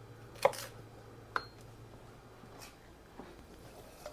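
A few scattered knocks and clinks of kitchen utensils: two sharp hits, about half a second and a second and a half in, the second ringing briefly, then a few faint taps.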